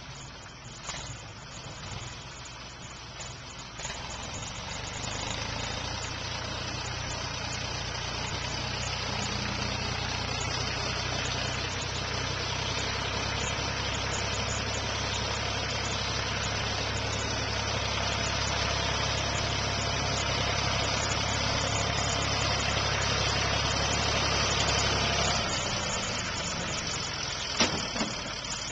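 Ford 420 backhoe's diesel engine running. About four seconds in it gets louder and steadier and holds there, then drops back about 25 seconds in. A single sharp knock comes near the end.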